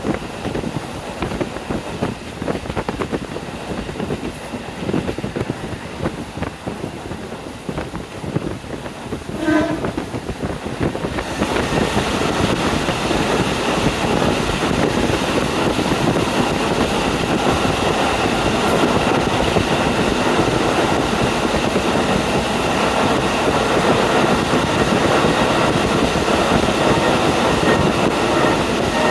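KiHa 40 diesel railcar running, heard through an open window: wheel clatter on the rails under steady engine and wind noise, with a brief horn note about nine and a half seconds in. From about eleven seconds the rush of wind and running noise gets louder and stays so.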